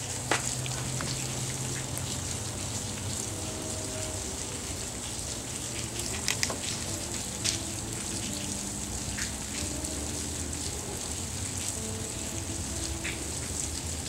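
Steady rain falling, with a few sharper single drop hits now and then.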